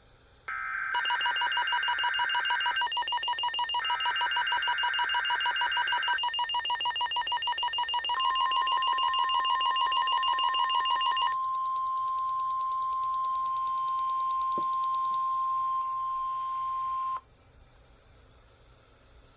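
Weather-radio alert sequence. The warbly digital screech of the EAS SAME header data bursts sounds twice, at the start and about four seconds in, while a receiver sounds a rapid pulsing alert beep for about ten seconds. About eight seconds in, the steady 1050 Hz NOAA warning alarm tone starts, holds for about nine seconds and cuts off suddenly, leaving faint radio hiss.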